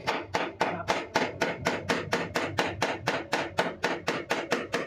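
Quick, even hammer taps on a car's sheet-metal side panel, about four or five a second, as the dent is worked out.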